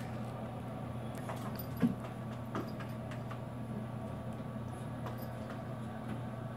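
Quiet background of a televised tennis match between points, a steady low hum with no commentary. A few faint taps and one short thump a little under two seconds in.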